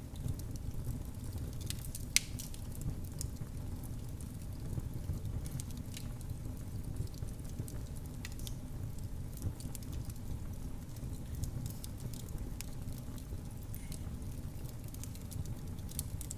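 Wood fire burning in a fireplace: a steady low rumble of flames with scattered crackles, and one louder pop about two seconds in.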